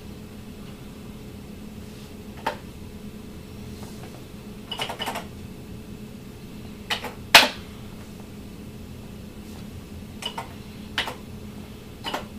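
Scattered clicks of keys being pressed on an Atari 800 computer's keyboard, about eight in all with the sharpest about seven seconds in, as the Logo drawing is halted with the Break key and commands are typed. A steady low hum runs underneath.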